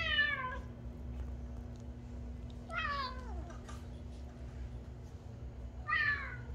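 Tabby cat meowing three times, short calls about three seconds apart, each falling in pitch. A faint steady hum lies underneath.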